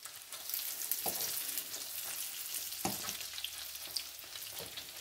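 Cheese sticks sizzling steadily as they fry in hot oil in a nonstick frying pan, with a couple of sharp clicks of metal forks against the pan as the sticks are turned.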